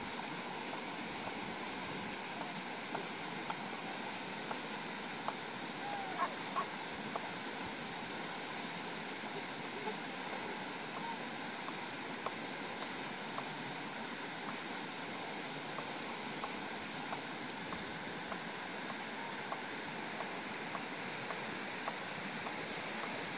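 Steady outdoor rushing noise, like wind or distant running water, with faint short chirps and clicks now and then.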